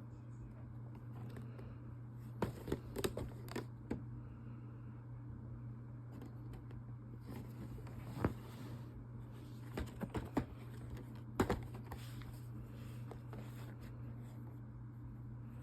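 Hands handling toy packaging: scattered clicks and short rustles in a few clusters, over a steady low hum.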